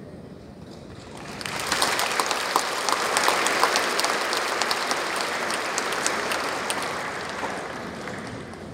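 Audience applause after a choir performance, starting about a second and a half in after a brief hush and slowly tapering off.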